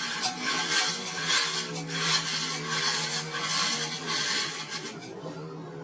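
Rhythmic rasping strokes of a hand file or similar abrasive tool working metal, about two strokes a second, stopping near the end.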